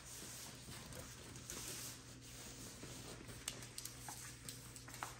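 Soft pattering and scuffling of a puppy's and a kitten's paws and claws on a tile floor, with a few faint clicks.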